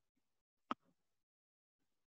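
Near silence broken by a single sharp click about two-thirds of a second in.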